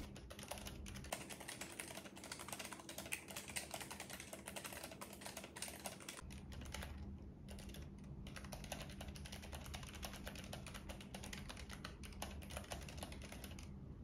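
Fast typing on a Keychron K3 low-profile mechanical keyboard with brown switches: a faint, dense run of key clicks, pausing briefly twice about halfway through.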